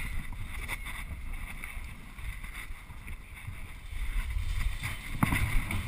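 Wind buffeting a small camera microphone as an uneven low rumble, with a few scattered knocks and rustles.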